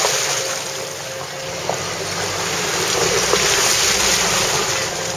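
Jeep driving along a wet gravel track: steady noise of tyres on gravel and water, with wind on a microphone held out of the window, over a low engine drone. A couple of small knocks, about two and three seconds in.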